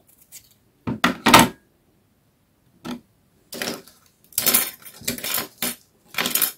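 Knife cutting a fresh aloe vera leaf and being set down on a tray, heard as several short scraping and clattering bursts.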